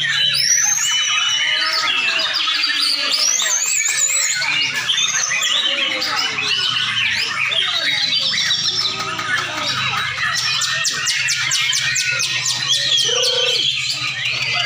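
Several white-rumped shamas singing at once, a loud chorus of overlapping whistles, glides and trills, with a run of fast ticking notes in the second half. A steady low hum and some human voices lie underneath.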